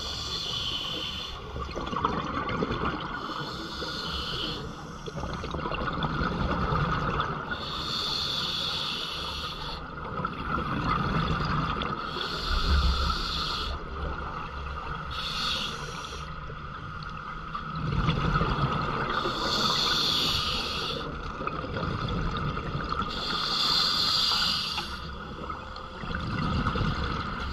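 A scuba diver breathing through a regulator underwater: rhythmic bursts of hissing and bubbling, about one breath every four seconds, over a steady underwater hiss.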